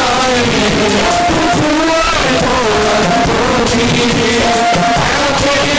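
Loud congregational worship song: a sung melody over instruments with a steady beat, the congregation clapping along.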